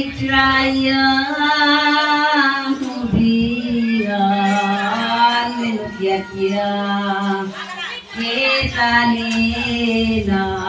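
Slow singing: a high voice holding long, drawn-out notes, phrase after phrase, with a short break a little past the middle.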